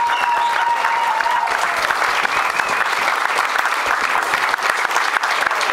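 Audience applauding steadily, many hands clapping at once, with a single held high tone over the clapping during the first second and a half.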